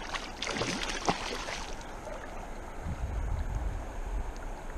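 A hooked fish thrashing and splashing at the surface of a shallow river in a quick run of splashes over the first two seconds or so, then the steady rush of the river current.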